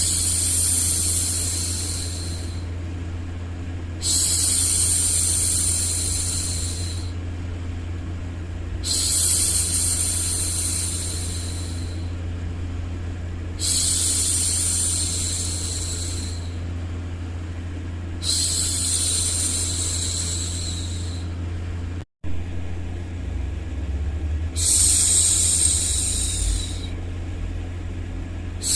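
A woman shushing 'shhh' to soothe a baby, repeated in long hushes every four to five seconds, over a steady white-noise bed with a low hum. About two-thirds of the way through, the sound drops out for a split second.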